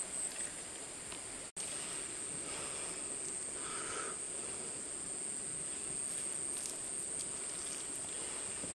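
Insects shrilling in a steady, high-pitched drone over faint outdoor hiss, cutting out briefly about a second and a half in.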